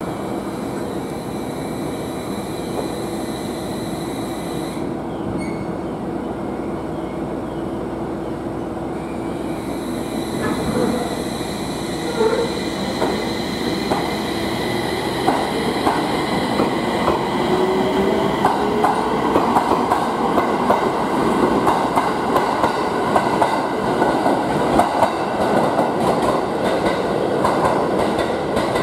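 701-series electric multiple unit moving through the station: a steady running hum, then a motor whine rising in pitch as the train gathers speed. Wheels click over the rail joints, growing louder toward the end.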